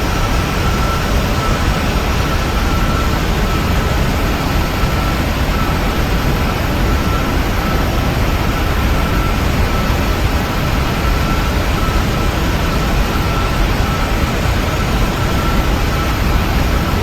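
Steady cabin noise inside a Boeing 737-900 airliner in flight: an even rush of engine and airflow noise, with a thin steady whine above it.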